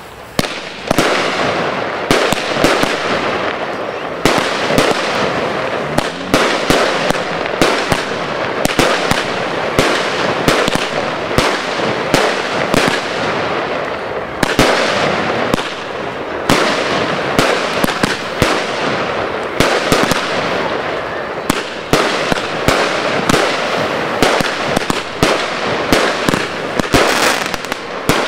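Pangu Fireworks 'Hong Kong' multi-shot consumer fireworks cake firing, with sharp shots and pops in rapid, irregular succession over a continuous hiss.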